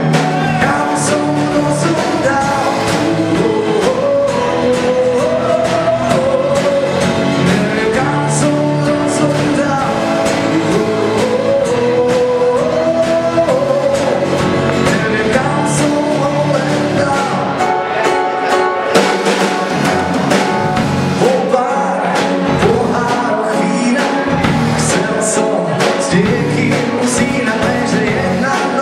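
Live band music: a male singer sings a melody over a strummed acoustic guitar, with a drum kit keeping the beat and cymbals striking now and then.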